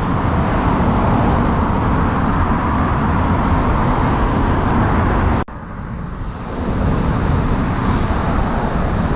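Steady outdoor background roar with no distinct events, cut off abruptly a little over halfway through (an edit) and then rising back to the same level.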